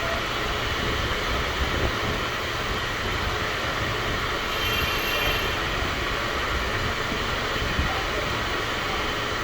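Steady background rumble and hiss with no distinct event.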